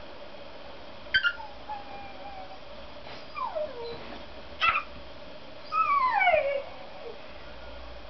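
Cockatiel whistling: two sharp chirps about a second in, then a string of descending whistles and a chirp. The loudest is a falling whistle about six seconds in.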